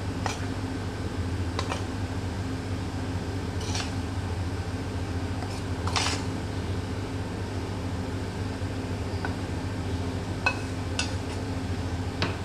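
Scattered light clinks and taps of a glass mixing bowl and dishes being handled, about seven in all, the loudest about six seconds in, over a steady low hum.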